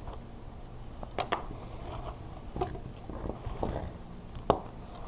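Light handling noises from unpacking a box: a few short, separate knocks and clicks, with faint rustling, as the power cord and paper inserts are taken out.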